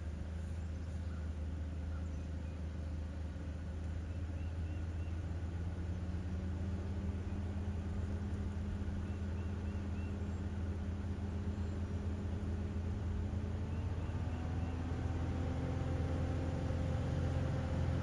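Car engine running at low speed with a heavy low rumble, its pitch creeping slowly upward and stepping higher about fourteen seconds in. A faint three-note chirp comes back every few seconds.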